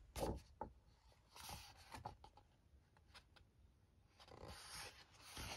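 Paper pages of a book being turned and handled: faint rustles and short swishes in the first two seconds, then a longer rustle about four seconds in.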